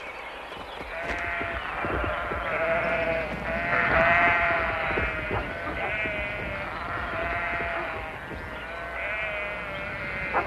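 A flock of sheep bleating, many calls overlapping, starting about a second in.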